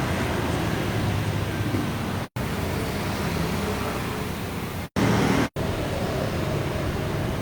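Steady motor-vehicle rumble with engine hum, cut off for an instant three times by edits.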